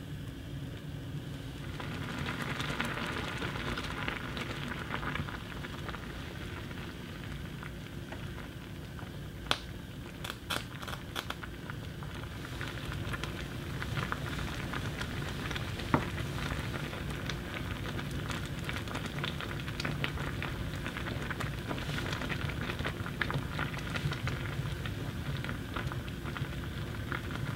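Soup bubbling at a steady boil in a pot on an electric hob, a continuous crackling hiss. A few sharp clicks come about ten seconds in, and one more a few seconds later.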